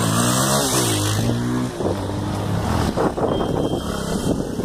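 Motorcycle engine revving: its pitch rises and falls in the first second, holds steady, then drops away about three seconds in.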